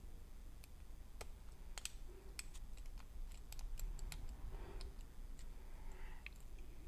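Lock pick working the pins of a six-pin ERA challenge lock: irregular small metallic clicks and ticks, several a second, as the pins are set and slip.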